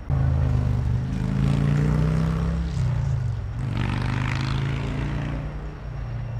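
Diesel locomotive engine running with a steady, pitched drone; its pitch sags briefly about halfway through, then comes back up.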